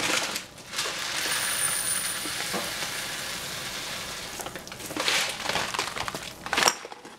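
Jasmine and sticky rice grains sizzling in hot cooking oil in a saucepan, a steady hiss as the dry rice toasts before the water goes in. A few sharp knocks near the end.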